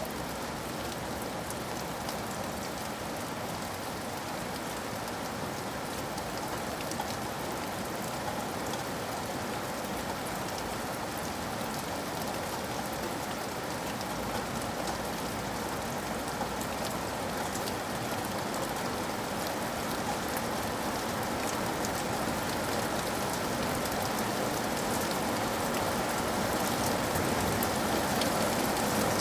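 Heavy rain hitting a window pane: a dense, steady hiss of water with many small drop taps, growing slowly louder toward the end.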